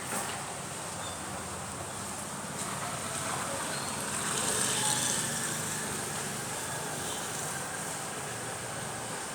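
Steady outdoor background noise like distant road traffic, swelling briefly about four to five seconds in.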